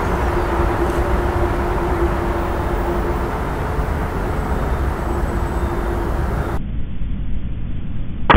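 Steady low rumbling background noise with a faint steady hum, turning duller about two-thirds of the way through. Right at the end comes the sharp crack of the air rifle's shot.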